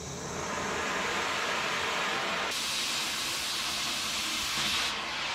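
Oxy-acetylene cutting torch hissing as it cuts steel, with sparks flying. The hiss turns louder and sharper about halfway through and eases back near the end.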